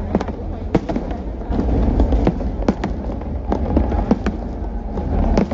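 New Year aerial fireworks display bursting: a steady run of sharp bangs at irregular spacing, roughly two a second, over a continuous low rumble.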